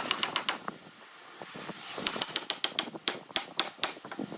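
A rapid, uneven series of sharp clicks and light knocks: a quick cluster at the start, a short lull, then a denser run from about halfway through.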